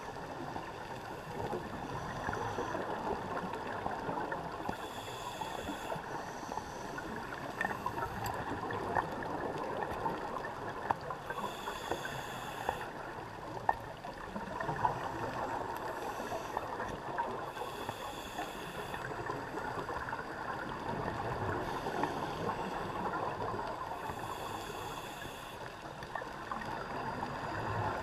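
Underwater sound heard through an action-camera housing: a steady muffled wash with scattered crackles and sharp clicks, and a brief high hiss from a scuba diver's regulator about every six to seven seconds.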